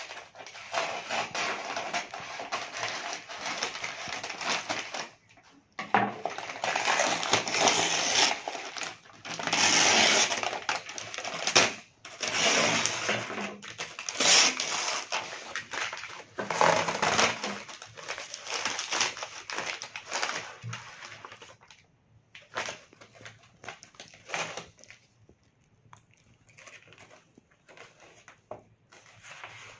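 Scissors cutting and hands tearing open a kraft-paper mailer, with loud crackling and crinkling of the stiff paper and its honeycomb paper wrap. After about twenty seconds it dies down to occasional faint rustles.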